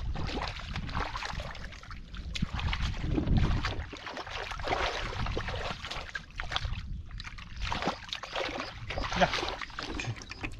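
Hands groping through shallow muddy water, sloshing and splashing in irregular bursts as the mud is worked.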